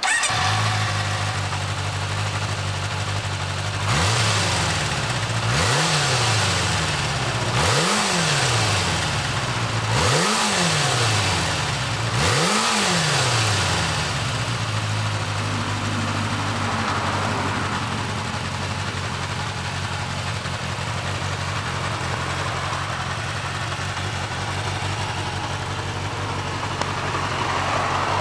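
Kawasaki Zephyr 400's air-cooled inline-four running through a 4-into-1 exhaust, catching right at the start and then idling. About four seconds in, it is revved with five quick throttle blips, each rising and falling in pitch, before settling back to a steady idle: a check that the engine runs.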